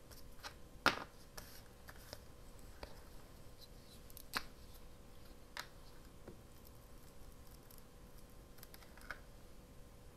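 Faint scattered clicks and taps of paper scraps and craft supplies being handled on a cutting mat, the sharpest about a second in, including a glue stick being uncapped.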